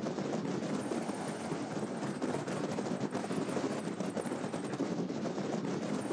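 Car driving along with wind buffeting the microphone: a steady, rapidly fluttering rumble of wind and road noise.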